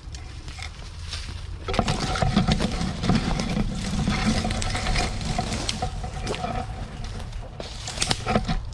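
Footsteps crunching through dry bamboo leaf litter, with bamboo stalks and leaves rustling and brushing as someone pushes through a thicket. It grows louder and denser a couple of seconds in.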